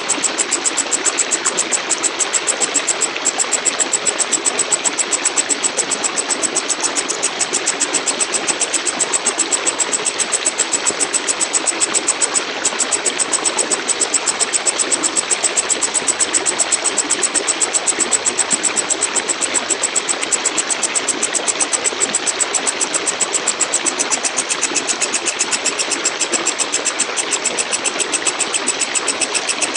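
Walang kecek katydid (a large bush cricket) calling: a continuous, high-pitched buzzing trill of rapid, even pulses, with a couple of momentary breaks.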